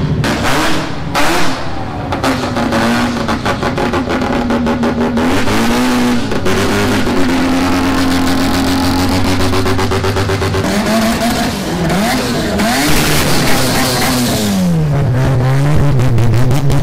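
Modified cars pulling away one after another, engines revving up and down. A burst of sharp exhaust bangs comes about a second in, then rising and falling revs, and near the end a lower engine tone with a blip.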